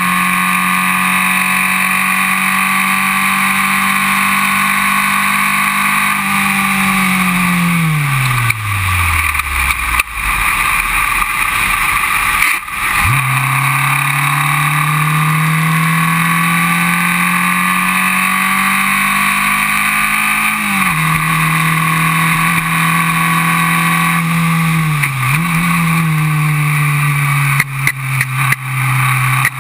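Formula Vee racing car's air-cooled Volkswagen flat-four engine at full throttle. Its pitch climbs slowly, then revs fall away sharply as the driver lifts for a corner. About 13 seconds in the revs pick up again and climb, with two brief dips later, and a run of short knocks comes near the end.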